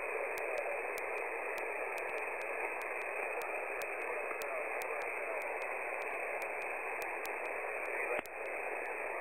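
Shortwave single-sideband receiver tuned to the 20-metre amateur band: a steady hiss of static in a narrow voice band, with a very weak station's reply buried in it, barely readable. A short click and brief drop in the hiss about eight seconds in.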